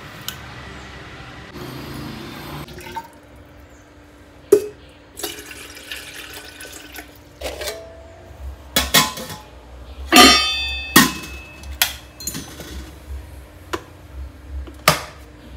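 Kitchenware being handled: a ceramic mug taken from a shelf, then stainless steel lids and an electric kettle knocking and clattering in a string of separate knocks, with one ringing metallic clang about ten seconds in.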